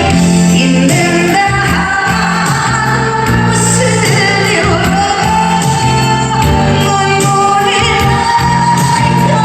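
A woman singing a Korean ballad over instrumental accompaniment, her voice wavering and sliding between held notes.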